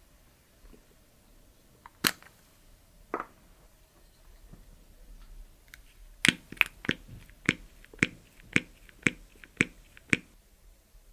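Clear slime being pressed and worked by hand, giving off sharp popping clicks: two single pops, then a steady run of about two a second.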